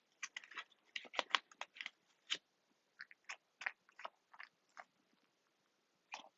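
Toy packaging being handled and pulled open by hand: irregular light crinkles and crackles, thick in the first couple of seconds, then sparser.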